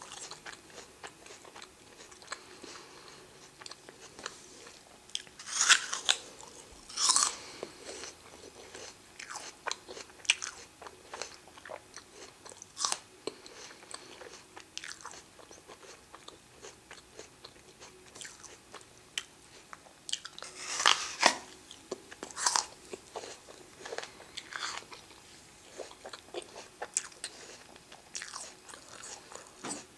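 Close-up eating of a crisp apple: crunching bites followed by steady chewing, with a few louder crunches, two near the start and two about two-thirds of the way in.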